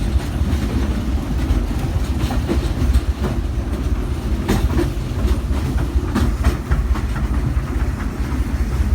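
Steam train passenger cars rolling along the track, heard from aboard: a steady low rumble with irregular clicks and knocks from the wheels and rail joints.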